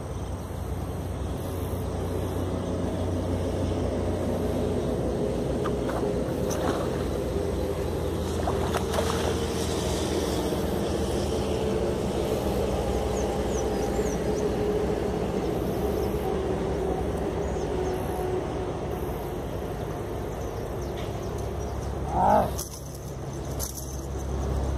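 Marine Sports Lubina GTS baitcasting reel cranked steadily while a hooked traíra is reeled in, its gears whirring with a pitch that wavers as the handle speed changes, over a low rumble.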